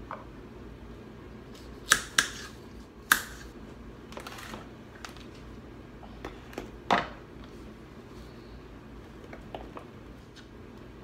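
Kitchen knife chopping carrots on a wooden cutting board: a few scattered sharp knocks, the loudest around two to three seconds in and again about seven seconds in, over a low steady hum.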